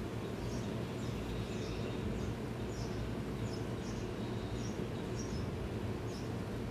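A small bird chirping repeatedly, short high chirps about twice a second, over a steady low background rumble.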